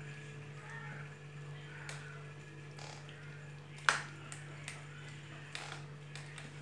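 Kittens eating: scattered small clicks over a steady low hum, with one sharp, ringing click about four seconds in.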